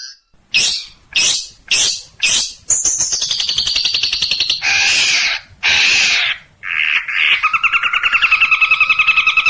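Songbird song in quick, abruptly changing phrases: four sharp falling notes, then a fast high trill, two harsh rasping calls, and from about two-thirds of the way in a steady, rapid trill on two pitches.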